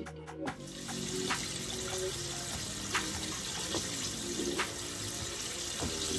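Chicken strips deep-frying in hot vegetable oil, a steady sizzle that starts about half a second in, with a few sharp clinks of the wire spider strainer against the pot.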